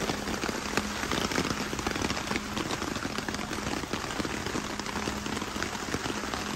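Heavy rain falling on a tarp overhead, a steady dense patter of many drops.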